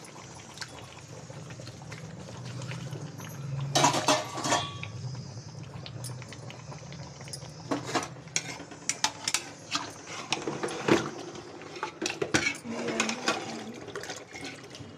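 Metal slotted spoon clinking and scraping against the side of a metal cooking pot while stirring chicken pieces with yogurt. The irregular clanks bunch together about four seconds in, then come often through the second half.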